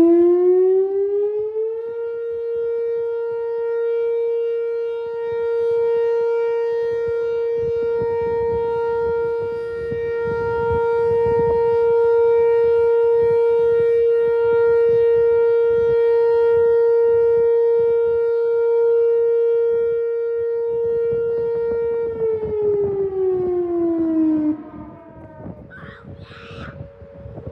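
Rotating outdoor tornado warning siren sounding its steady test tone. It winds up in pitch over the first two seconds and holds one loud tone, swelling and fading as the horn turns. About 22 seconds in it winds down, and it drops away a couple of seconds later.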